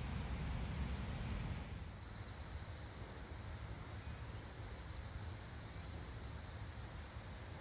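Outdoor field ambience: a low rumble, like wind on the microphone, drops away about two seconds in. After that comes a quieter steady hiss with a faint, even high tone, like insects chirring.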